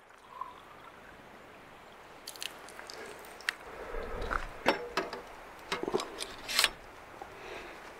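Scattered sharp clicks and knocks as a stainless steel water bottle is capped and pushed into a holder on an e-bike's handlebars, with a few duller thuds among them.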